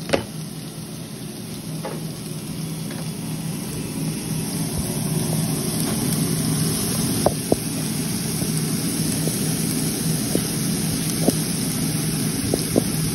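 Diced onions sizzling in hot oil in a pan, over a steady low hum, getting louder over the first few seconds. A few light clicks and knocks of utensils on the cookware come through, mostly in the second half.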